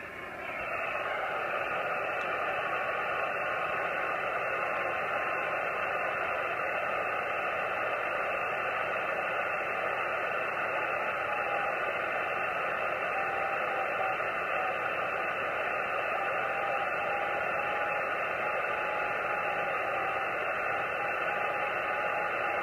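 Radio receiver in CW mode on the 70 cm band, giving a steady hiss of receiver noise that comes up about half a second in. From about halfway through, the CHUBUSAT-3 satellite's CW beacon is heard as a faint, broken Morse tone within the noise.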